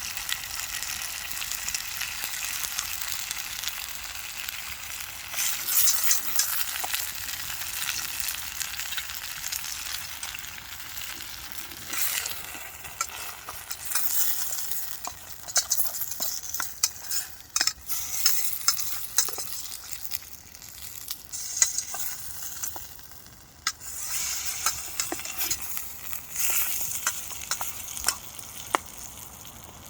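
Steak and potatoes sizzling in a frying pan over a campfire, with a steady hiss broken by frequent small pops and crackles.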